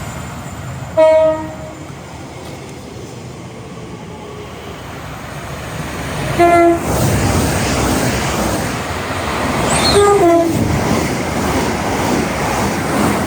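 A train's horn sounds three short blasts, about a second in, about six and a half seconds in, and around ten seconds, the last stepping down from a high note to a low one. The rumble and rail noise of a passing train build up under the later blasts.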